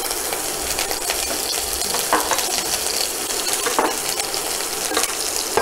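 Hot oil sizzling in a kadai with a tempering of mustard seeds, urad dal, chana dal and freshly added chopped green chillies: a steady hiss with many small crackles and pops.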